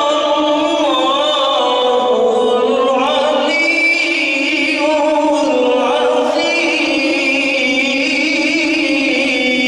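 A man reciting the Qur'an in the melodic tilawah style into a microphone, holding long notes with a wavering vibrato and ornate rising and falling turns.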